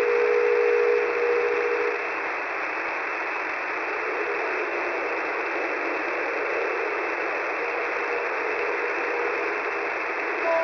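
Shortwave radio receiver tuned to 10755 kHz, giving a steady static hiss squeezed into a narrow voice-width band. Two steady whistle tones sound over the hiss and stop about two seconds in; faint broken tones come and go later.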